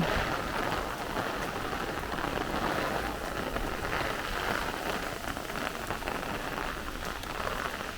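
Heavy squall-line thunderstorm rain falling in a steady downpour.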